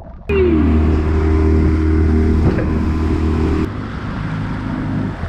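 Outboard motor of a small aluminium dinghy running steadily underway. It drops to a lower level about three and a half seconds in.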